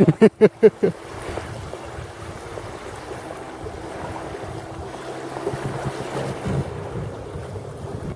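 Wind blowing over the microphone with small waves washing against the shore, a steady rushing noise.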